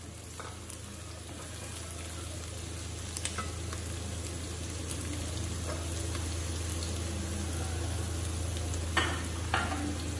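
Carrot slices, onions and green onions sizzling in hot oil in a stainless-steel wok while a wooden spatula stirs them, the frying growing slowly louder. Scattered light scrapes, with two sharp clatters near the end.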